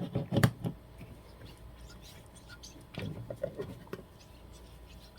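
Close handling noises as a vinyl label is put onto a glass candle jar: a quick run of clicks and knocks, then a second, softer cluster about three seconds in.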